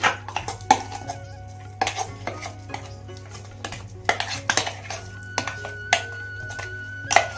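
Metal spoon scraping and clinking against a stainless-steel mixer-grinder jar as thick ground dal paste is scraped out onto a steel plate: irregular knocks and scrapes. Background music with sustained tones plays underneath.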